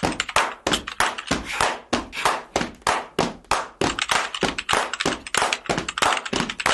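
Fast typing on a laptop keyboard: hard, uneven key clacks, about three or four a second.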